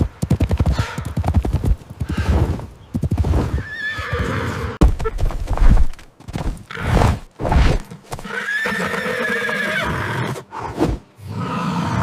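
Horse neighing several times, with a wavering, whinnying pitch, mixed with the clip-clop of hooves.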